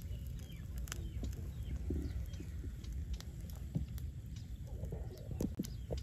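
Wind rumbling on the microphone, with scattered small crackles and clicks from the charcoal embers under the spit-roasting duck and a few faint bird chirps.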